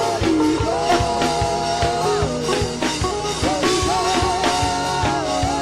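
Live gospel worship music: a drum kit keeps a steady beat under long held melody notes that bend and waver in pitch.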